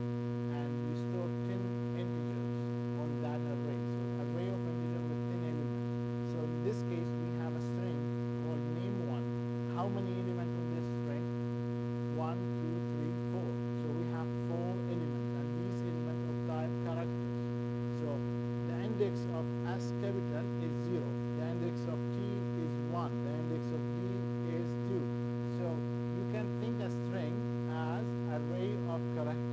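Steady electrical hum: a strong low tone with a ladder of evenly spaced overtones, unchanging throughout. Faint, scattered short sounds lie underneath, with a small tick near the middle.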